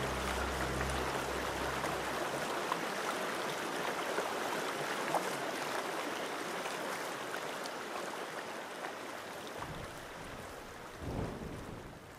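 Rushing water noise, like a stream or surf, slowly fading out. A low drone stops about two seconds in, and a couple of low rumbles come near the end.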